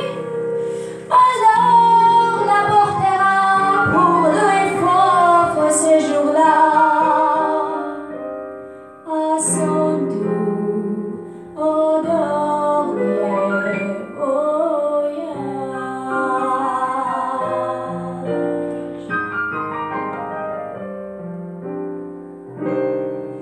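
A woman's solo voice singing a song with vibrato, accompanied by a digital piano. Near the end the voice drops out and the piano plays the closing chords, which fade away.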